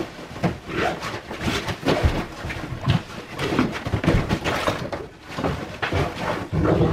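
A Great Dane digging and pawing at his dog bed: irregular scratching, scuffing and thumps of big paws and body on the padded bed.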